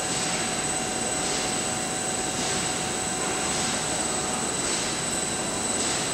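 Steel-coil slitting line running: a steady machine drone with a constant high whine and a faint hiss that swells about once a second.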